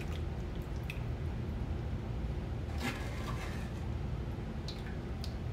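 A white plastic ladle scooping and pouring sauce from an electric skillet, with a few light clicks of the ladle against the pan, the clearest about three seconds in, over a steady low hum.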